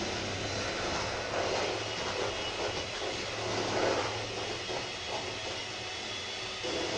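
Electric mixer motor running steadily, with a low hum, as it whips a cream mixture toward stiff peaks.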